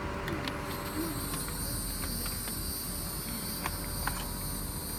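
Steady high-pitched insect chirring with a low rumble underneath and a few faint clicks.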